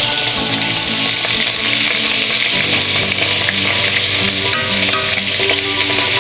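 Butter sizzling as it melts in a hot Dutch oven, a steady frying hiss.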